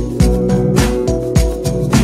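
Background music with a steady beat, a little under two beats a second, over held pitched notes.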